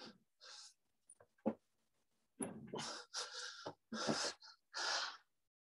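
A person breathing hard from exertion during shoulder taps, a run of short, quick breaths from a little before halfway on.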